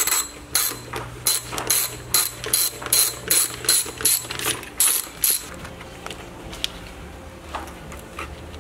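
Hand socket ratchet clicking in quick back-and-forth strokes, about three a second, as a bolt is turned. It stops a little after five seconds in, leaving a few fainter clicks.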